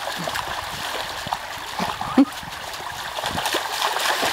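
Several dogs, mostly golden retrievers, wading and splashing through a shallow river over the steady rush of running water. A short vocal sound stands out about halfway through.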